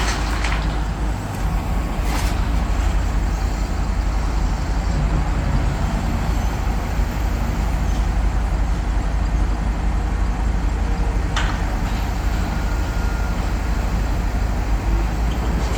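Heavy diesel machinery engine running steadily with a deep, continuous rumble, with a few sharp knocks, one about two seconds in and one near eleven seconds.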